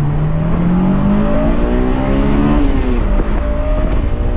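Car engine accelerating hard, its pitch climbing steadily for about two and a half seconds, then dropping and carrying on at a steadier pitch.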